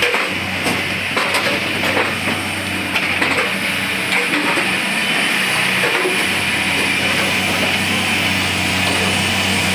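A track relaying train's diesel engine running with a steady low hum, with a few clanks and knocks in the first few seconds.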